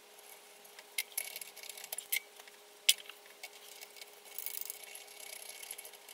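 Small clicks and light metallic clinks of wires and terminal hardware being handled in a three-phase electric motor's terminal box, the sharpest click about three seconds in, with a faint steady hum underneath.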